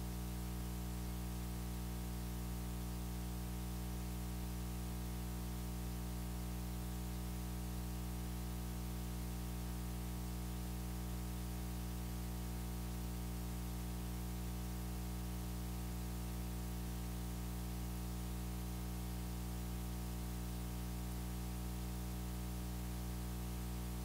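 Steady low electrical hum with a stack of overtones and a faint hiss, unchanging throughout, running under the recording from the sound system.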